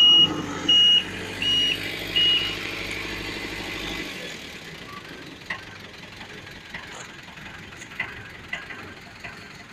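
Reversing alarm of a road-works vehicle beeping at an even pace, about one beep every 0.7 s, over its running diesel engine. The beeping stops about two and a half seconds in, and the engine sound fades away about a second later.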